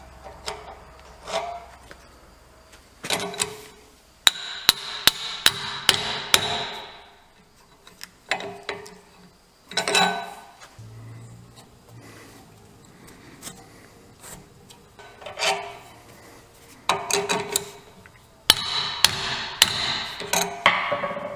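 Leather washers being tamped down onto a steel knife tang with a metal tube: runs of sharp knocks, with scraping between them.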